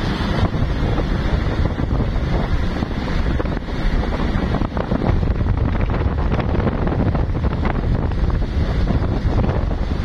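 Steady wind buffeting the microphone of a rider on a moving motorcycle.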